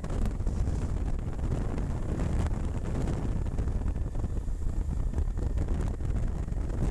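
Wind buffeting the microphone of a camera mounted on a motorcycle riding along at road speed: a steady low rumble of wind and riding noise.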